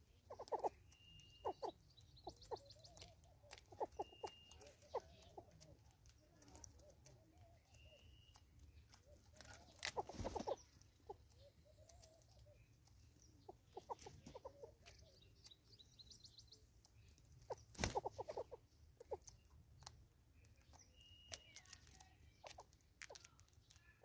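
Scattered sharp taps and clicks of a southern yellow-billed hornbill's bill pecking seed from a feeder jar on a tree stump. Short high whistled bird notes come now and then.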